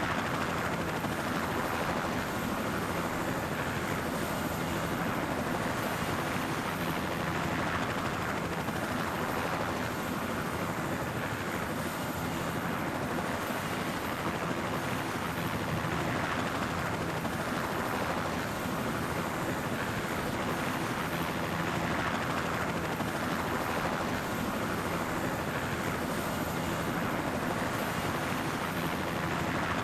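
Helicopter running steadily, a continuous drone of engine and rotor that swells gently every few seconds.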